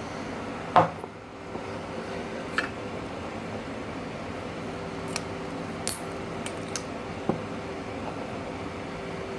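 Sharp snips and small metallic clinks as the spot-welded nickel strips and junk are cut off 18650 lithium-ion cells and the cells are handled, with a loud snap about a second in. A steady faint hum runs underneath.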